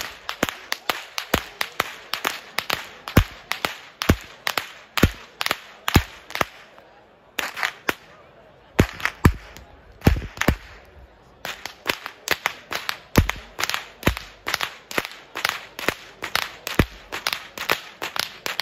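Long Swiss Geissle whip swung overhead and cracked in a steady rhythm, about three sharp cracks a second. The beat breaks off for a few seconds around the middle, then picks up again.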